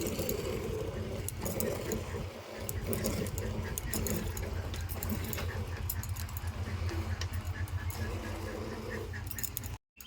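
Rhythmic hand milking of a cow: repeated squirts of milk hitting a bucket with a rattling, jingly sound. It cuts off abruptly near the end.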